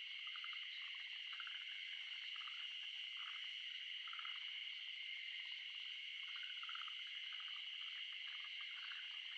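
Frogs calling in short rattling trills, one after another, over a steady high-pitched chorus of wetland insects or frogs.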